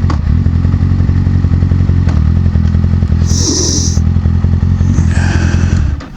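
Kawasaki ZX-6R 636 inline-four engine running steadily at low, even revs, then cutting off about six seconds in. A brief high-pitched tone sounds about three and a half seconds in.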